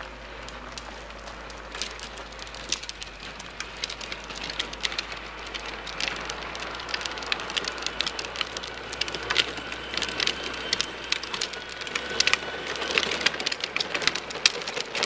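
Battery-powered ride-on toy tractor rolling over asphalt, its hard plastic wheels crackling on the grit, growing louder as it approaches. A faint whine from its electric drive runs through the middle.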